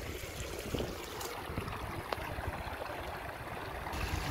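Shallow stream running over a bed of rounded stones, a steady trickling wash of water.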